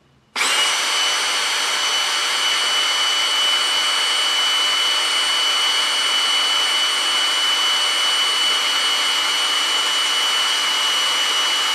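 Power drill motor starting about half a second in and then running at a steady speed with a high, even whine, its twist drill bit boring a hole through a raw potato.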